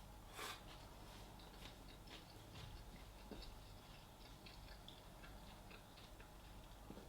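Quiet chewing of a soft sandwich: faint, irregular mouth clicks and smacks, one slightly louder about half a second in.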